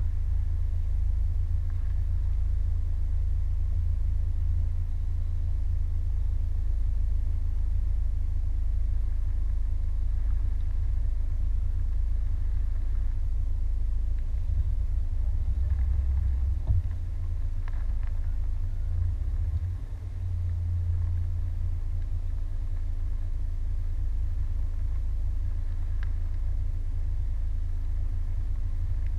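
Steady low rumble of a car's engine and tyres on a wet road, heard from inside the cabin, with a few faint ticks.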